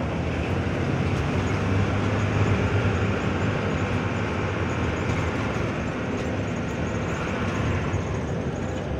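Steady cabin noise inside a running intercity bus: a low engine drone under a broad rush of road and air-conditioning noise, the drone a little heavier about two seconds in.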